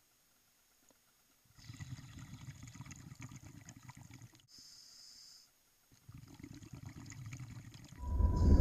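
Scuba diver breathing underwater through a regulator: two bubbling rushes of exhaled air, starting about one and a half and six seconds in, with a short hiss of inhalation between them. A much louder, steady sound cuts in near the end.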